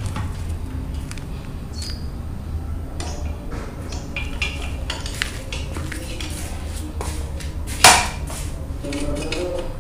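Metal hand tools and parts clinking and knocking as a new hub and sprocket are fitted to a motorcycle rear wheel, with one sharp, louder knock about eight seconds in.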